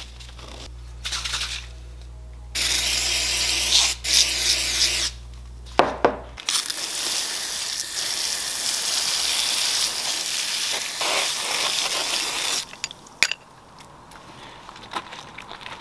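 Water spraying onto a hand drill's metal bevel gear held in the hand, a steady hiss lasting about six seconds as the red residue is rinsed off, then stopping. Before it, a paper towel rubs over the gear and two shorter loud sprays hiss.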